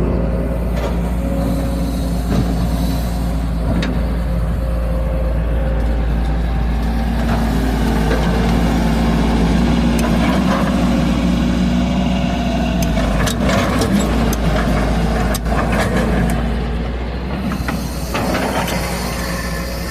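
Excavator's diesel engine running steadily under load while digging. A few sharp knocks come in the latter half.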